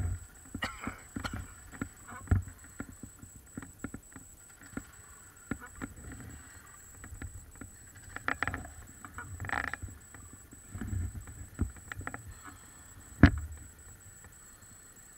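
Irregular low rumbling gusts and scattered knocks on the microphone of a small action camera, with one sharp click near the end. A faint steady high whine lies underneath.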